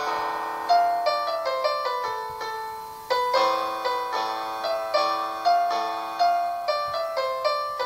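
Piano sound from an online keyboard played through a laptop, recorded on a phone: a slow melody of struck notes in the middle register, each ringing and fading. There is a short lull about three seconds in before the next louder phrase.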